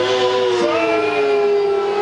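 Two motorcycle engines at high revs during a drag race, held as two steady high whines whose pitch sags slightly and rises again.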